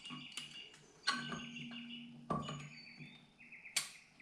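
Scattered metal clinks and several sharp knocks as the cylinder head of a Honda CB550 inline-four is worked up off its studs and eased out of the frame.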